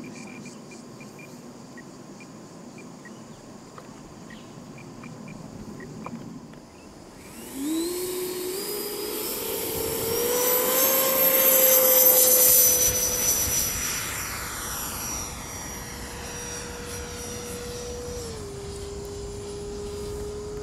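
Electric ducted fan of a Freewing T-45 RC jet spooling up after a quiet start, its whine climbing in steps as the throttle opens for takeoff. It is loudest a few seconds later as the jet passes, then holds a steady whine that eases slightly lower near the end.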